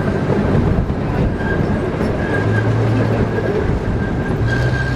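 Zoo ride-on train running along its track, heard from aboard: a steady rumble with a thin high whine that comes and goes.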